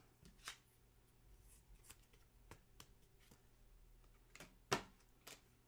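Faint handling of trading cards: a few soft clicks and slides of cards being sorted, the clearest click near the end.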